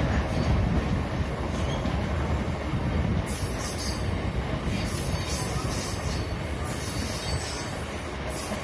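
Train running on the rails, heard from aboard: a steady rumble of wheels on track. From about three seconds in, a high-pitched wheel squeal comes and goes several times.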